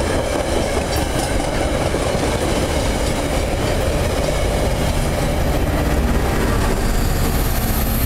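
Metra bilevel commuter train passing through a station at speed without stopping: steady rumble and clatter of the coaches' wheels on the rails. The diesel locomotive pushing at the rear comes past near the end.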